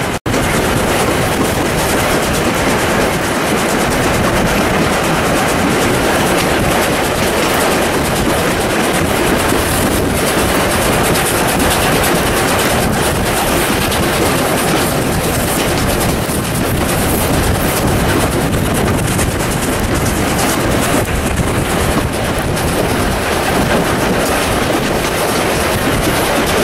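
South Australian Railways 620-class steam locomotive 621 working hard up a 1 in 45 grade with a five-carriage train. Its exhaust and the train's running noise are heard from an open window of a wooden passenger carriage as a loud, steady, dense noise.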